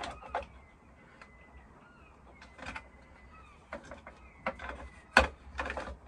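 Clear plastic fuse box cover being pushed and worked against the fuse block, a scatter of small plastic clicks and knocks with one sharp click about five seconds in. The cover won't snap shut because the cable fitted to the box is too thick.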